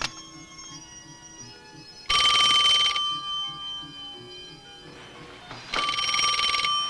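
Telephone bell ringing twice, each ring about a second long with a fast trill, a few seconds apart, over soft background music.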